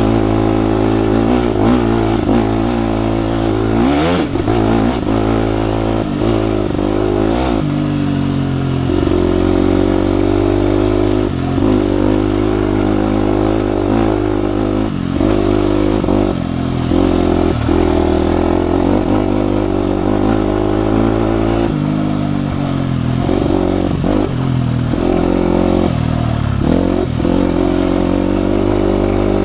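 2007 KTM 250 EXC-F's single-cylinder four-stroke engine running under load, its revs dropping briefly and climbing again many times as the throttle is rolled off and back on.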